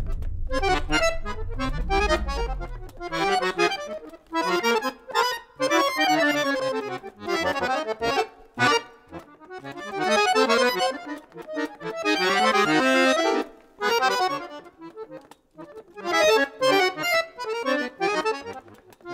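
Chromatic button accordion playing short, abruptly broken-off chords and clusters separated by brief silences, with a denser held passage about two-thirds of the way through. Under the first few seconds a low electronic tape tone swells up and falls away.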